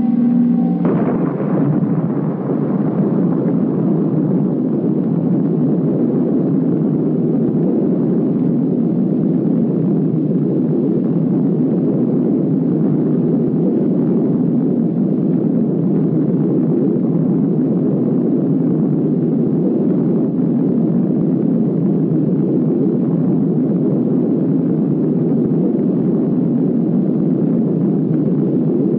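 Atomic bomb test explosion on an old film soundtrack: a sudden blast about a second in, then a long, steady, low rumble.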